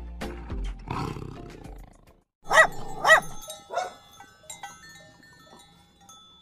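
A big cat roars for about the first two seconds. A dog then barks twice loudly, about two and a half seconds in, followed by a softer third bark and a few faint ones.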